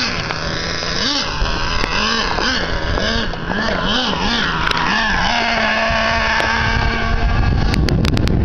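Small nitro engine of a Traxxas Revo RC monster truck, revved in short throttle blips about twice a second, then held at a steady pitch for a couple of seconds. Near the end comes a low rush of wind on the microphone with a few sharp clicks.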